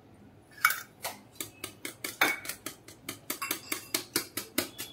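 Metal kitchen utensils clinking: a couple of louder clinks of a spoon against a steel bowl as melted butter is scraped out, then a wire whisk beating batter in a glass bowl, ticking rapidly against the glass.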